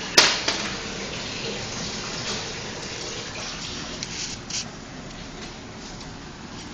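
Steady rushing background hiss, with one sharp click about a quarter of a second in and a few fainter clicks and knocks later.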